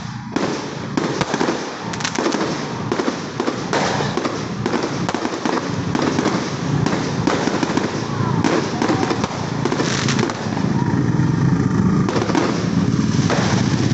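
Fireworks display: a rapid, continuous run of bangs and crackling from fireworks going off one after another.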